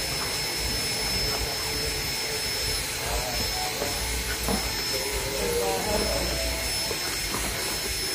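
Steady rushing background noise, with the faint sounds of fried rice being eaten by hand: chewing and a few soft clicks.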